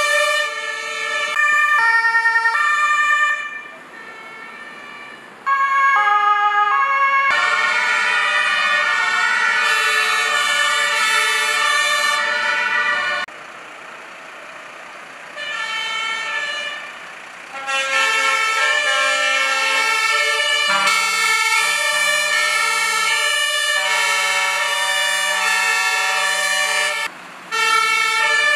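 Two-tone sirens of passing fire engines, several sounding at once, each switching back and forth between two steady pitches. The sound drops away briefly a few times between trucks.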